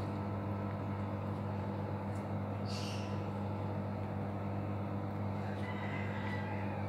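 A steady low electrical hum from an appliance, with a faint scrape of a spoon smoothing cream over a slice of bread about three seconds in.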